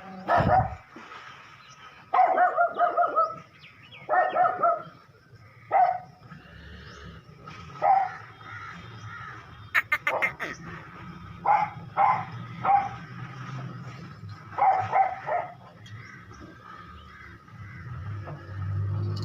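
Goats bleating again and again, a dozen or so calls, some short and some drawn out with a wavering quaver. A quick run of clicks comes about ten seconds in.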